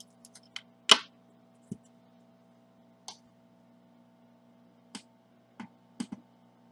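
Sharp clicks and taps of small hard parts being set down on a bench mat, over a steady low hum. The loudest tap comes about a second in, as the iPhone 6 Plus logic board is laid down, and several lighter clicks follow.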